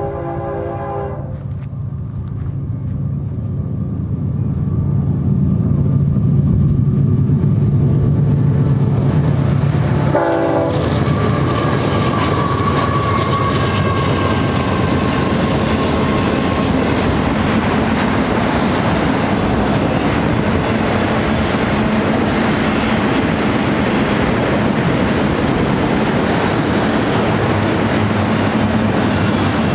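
Diesel freight locomotive passing at a grade crossing: its air horn ends a blast about a second in, the engine rumble builds as it nears, and a second short horn blast sounds about ten seconds in. Then a long string of auto-rack cars rolls past with steady wheel and rail noise.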